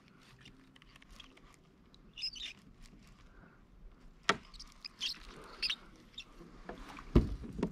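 Quiet lakeside air with a few short, high bird chirps about two seconds in and again around five seconds, a sharp click a little past four seconds, and a low thump near the end.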